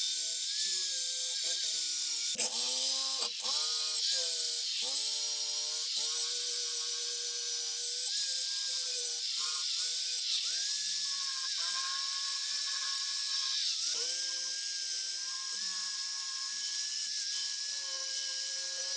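Power drill spinning a small wire wheel brush against the steel head of a 1920s Kelly bush axe, scrubbing off the black residue left by electrolysis. The motor's whine sags in pitch each time the brush is pressed in and picks back up, several times over, under a steady scratchy hiss of wire on steel.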